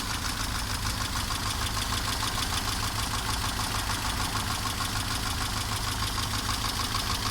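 Mercedes-Benz 190E (W201) petrol engine idling steadily and evenly. The clucking knock that the owner hears under load, which he cannot place between camshaft, valves or timing chain, is not evident at idle.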